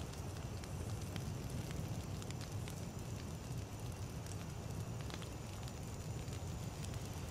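Wood campfire burning, with a steady low rumble of the flames and scattered crackles and pops of the burning wood.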